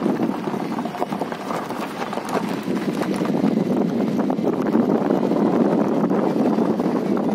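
Vehicle driving over a rough gravel road: a steady rumble of tyres on stones with dense rattling and knocking throughout.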